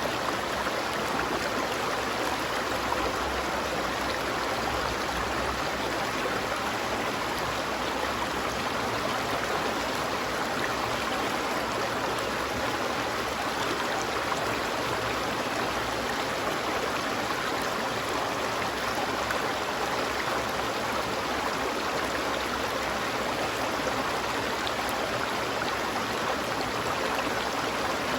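Stream water flowing over rocks in an even, unbroken rush.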